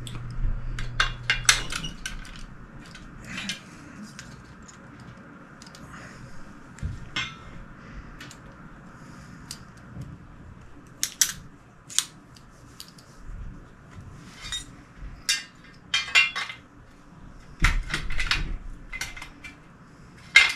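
Irregular metallic clicks and clinks of a Benelli Vinci shotgun's parts being handled as its bolt is fitted back into the receiver.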